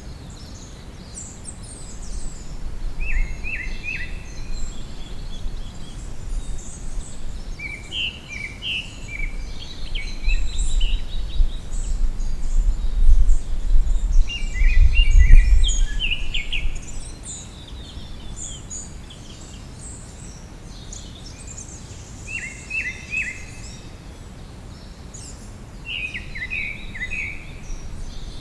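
Several songbirds singing and chirping, short phrases of quick notes repeating again and again. A low rumble swells under them through the first half and is loudest just past the middle.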